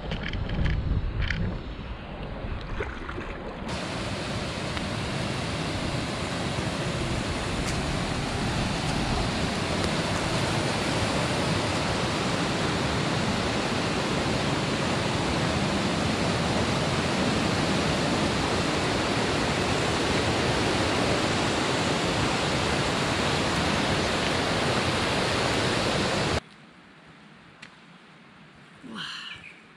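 River rapids rushing steadily over rocks. The sound cuts off suddenly near the end, giving way to a quiet stretch with a few footsteps on a trail. The first few seconds hold the softer sound of a canoe moving on open water.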